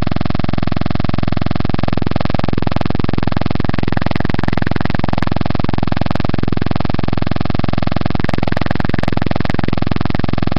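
Loud, unbroken electrical buzz that fills the recording, an audio fault, with a voice faintly under it from about two to five seconds in and again near the end.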